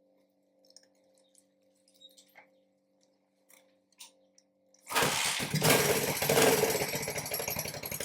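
Faint held tones die away under a few small clicks and taps. About five seconds in, a loud machine starts suddenly and runs for about three seconds, then cuts off.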